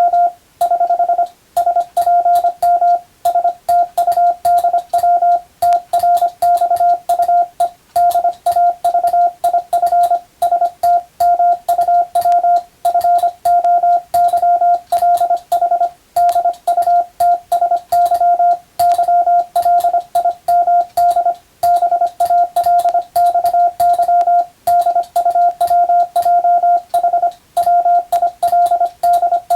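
Morse code (CW) as a steady single-pitch tone keyed on and off in rapid dots and dashes, an English-text telegram practice passage being sent at speed, with faint clicks on the keying edges.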